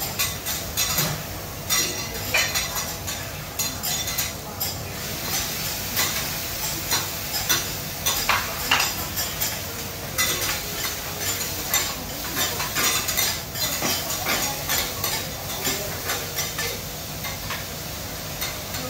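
Food sizzling on a teppanyaki griddle while metal spatulas scrape and clink against the hot steel plate in many short, irregular strokes.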